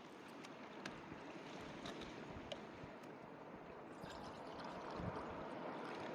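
A steady rush of surf and wind, with a few faint sharp ticks scattered through it, growing a little louder near the end.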